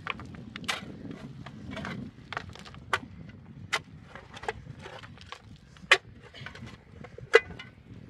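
Steel shovel digging into stony soil: irregular scrapes and sharp clinks of the blade against dirt and stones, with two louder strikes near the end.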